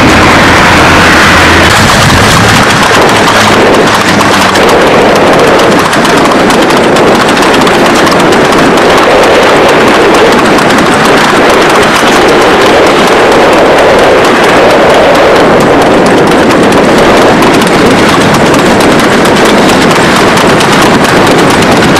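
A horse-drawn tanga cart at speed: hoofbeats and the rumble of its wheels on the road, mixed with loud steady noise from the vehicle carrying the camera alongside the running horse.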